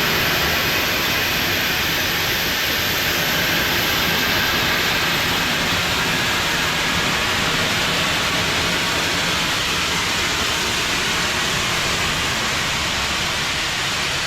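Steam locomotive venting steam in a steady, loud hiss.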